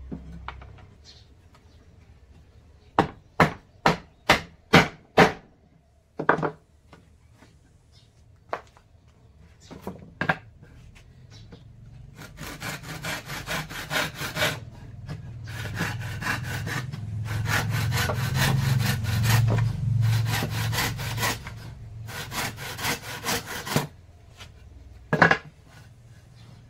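Hand saw cutting wood in quick, rhythmic back-and-forth strokes through the second half. Earlier come six sharp knocks on wood in a quick row, then a few single knocks.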